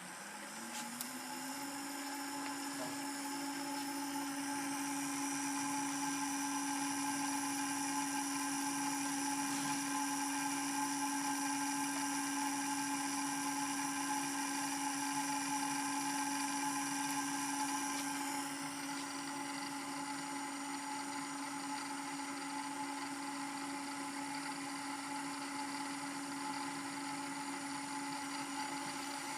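Allen-Bradley servo motor being test-run, with a steady electric whine. The pitch rises over the first second or two as the motor speeds up, then holds. A little past halfway the highest tones drop away and it gets slightly quieter.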